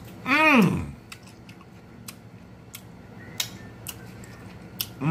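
Close-miked chewing of a raw mini sweet pepper: irregular crisp crunches and mouth clicks. About half a second in there is a short voiced exclamation whose pitch rises and then falls, and another begins right at the end.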